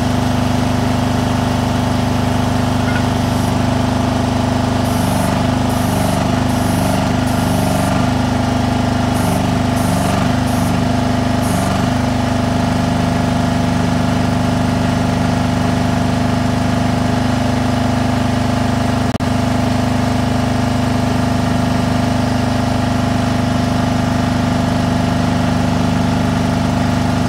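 Hydraulic power unit of a towable boom lift running steadily while its outrigger legs are lowered. About eight short high-pitched pulses come between about 3 and 12 seconds in, and a single click sounds later.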